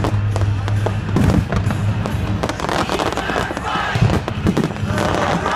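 Aerial fireworks display: shells bursting and crackling in rapid succession, with music playing underneath.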